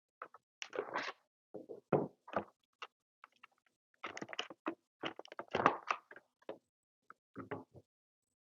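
Stud-finder packaging being pried and pulled open by hand: irregular clicks, cracks and scraping crackles in clusters, heaviest about two seconds in and again around five to six seconds.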